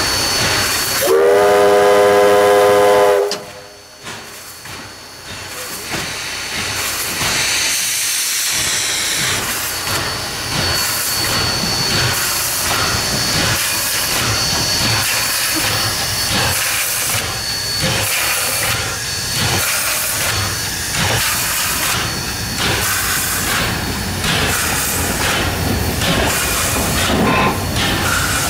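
Two-foot gauge Hudswell Clarke steam locomotive: its whistle sounds once for about two seconds and cuts off. The engine then runs on with regular exhaust beats and steam hiss.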